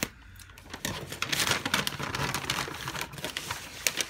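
Brown kraft-paper wrapping crinkling and rustling as it is cut with scissors and pulled open, starting about a second in.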